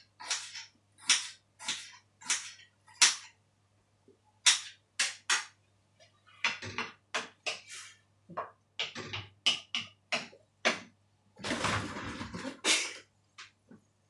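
A knife chopping on a cutting board in a steady run of sharp chops, then a wooden spatula knocking and scraping in a steel wok as a stir-fry is stirred, with a longer, louder scrape near the end. A faint steady electrical hum lies underneath.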